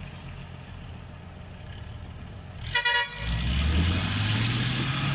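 Heavy trucks' engines running low and steady, then a short horn toot about three seconds in. Right after it, a truck engine revs up, rising steadily in pitch and growing louder as it takes the strain of towing a bogged truck out of the mud.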